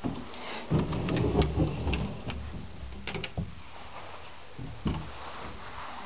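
Rubbing handling noise and footsteps from a handheld camera carried through rooms. Several sharp clicks and knocks come in the first half and one more thump near the end.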